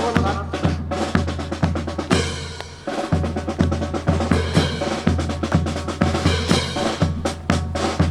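Drum-led music accompanying a precision drill display, with a steady bass-drum beat and snare strikes. It thins out and dips about two seconds in, then comes back in full about a second later.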